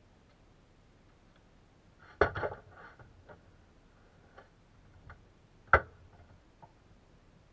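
Clicks and knocks from handling a portable LED work floodlight: a quick cluster of knocks about two seconds in and one sharp click near six seconds, with a few faint ticks between.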